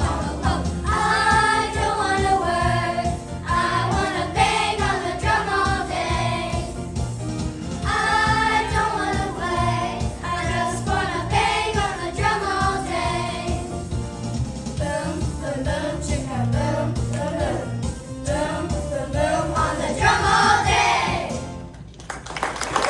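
Choir singing over backing music with a steady bass beat. The music stops abruptly about a second before the end and applause begins.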